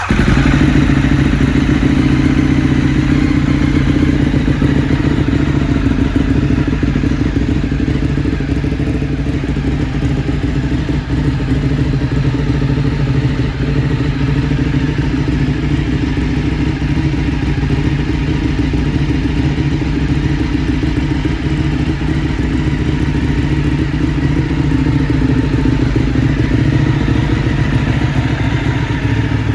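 Ducati Streetfighter 848's V-twin engine idling steadily, a loud, even low rumble with no revving.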